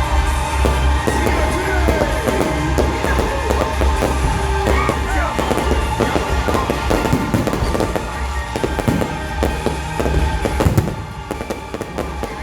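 Fireworks show: dense crackling and bangs of exploding fireworks throughout, over music with steady held notes.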